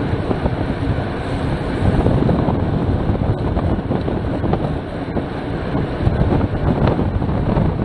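Steady wind noise rushing and buffeting over the camera's microphone as a road bike rides at about 28 mph.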